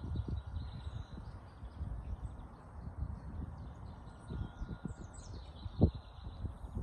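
Small songbirds chirping and singing in the woods, with a low rumble on the microphone throughout and one sharp bump about six seconds in.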